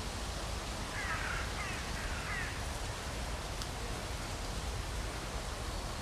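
Steady outdoor background hiss and low rumble, with a small bird giving a few short chirping notes about a second in.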